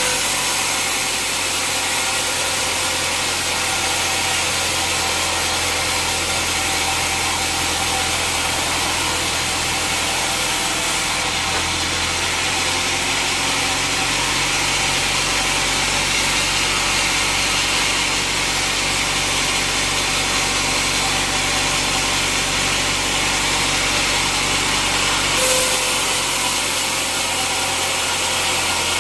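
Sawmill saw running steadily as it cuts through an old teak log: a constant machine drone under a high sawing hiss that eases a little about a third of the way in and comes back near the end.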